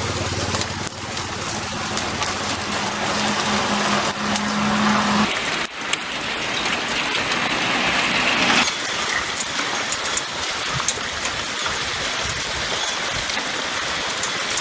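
Hailstorm: hailstones pelting down in a dense, steady clatter of small impacts. A vehicle engine idles under it and cuts off about five seconds in. The downpour swells to its loudest about eight seconds in, then eases a little.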